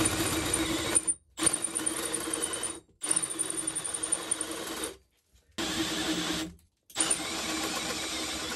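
Milwaukee M18 cordless drill running under load as a bit bores into a metal block held in a vise, opening up bolt holes. The motor runs in five trigger pulls with short pauses between them.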